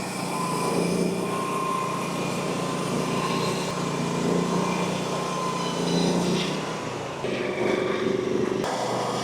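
Frontier OS35 portable hydraulic sawmill's small engine running steadily under a high whine, the sound shifting a little about two-thirds of the way through.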